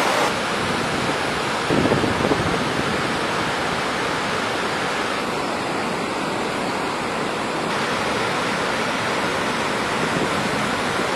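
Steady rush of fast-flowing floodwater: a swollen river carrying water released from a dam's raised spillway shutters. It is broken by a few brief gusts of wind on the microphone about two seconds in.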